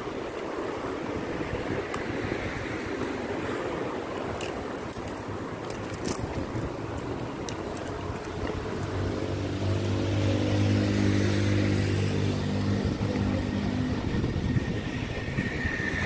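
Oxelo MF500 inline skate wheels rolling on an asphalt road, under a steady rush of wind on the microphone, with a few light clicks. For about four seconds past the middle, a vehicle's engine hum comes in steadily and then fades.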